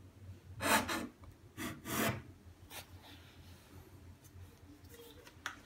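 Two brief rustling scrapes about a second apart, then a couple of light clicks: handling noise as the laptop and the camera are moved about.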